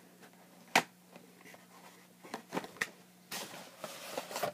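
Toy packaging being opened by hand: one sharp click about a second in, a few lighter clicks, then rustling near the end.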